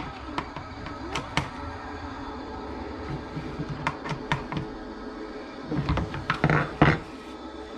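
Scattered light clicks and taps from small parts being handled during a snowmobile tail-light change, with a few louder knocks about six to seven seconds in, over faint background music.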